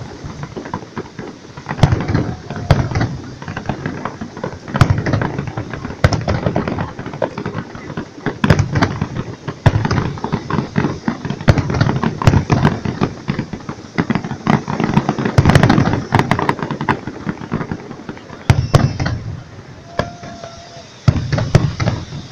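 Fireworks display: aerial shells bursting with deep booms that come in clusters every few seconds, over almost constant crackling and popping.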